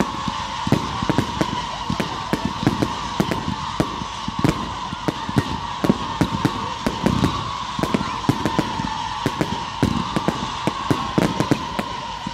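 Fireworks going off in a dense, irregular string of cracks and pops, several a second, as a barrage of comets shoots up. A steady, slightly wavering tone runs underneath.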